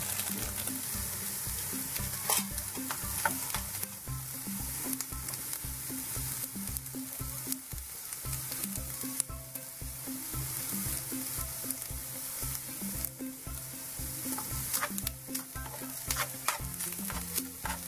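Ground beef with chopped onion and peppers sizzling in a frying pan as it is stirred, the utensil clicking and scraping against the pan now and then.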